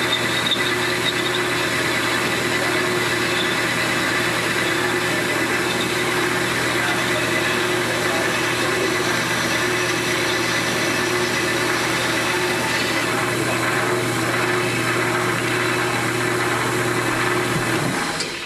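Band saw running steadily with a motor hum, its blade cutting through a piece of wood. The sound cuts off abruptly near the end.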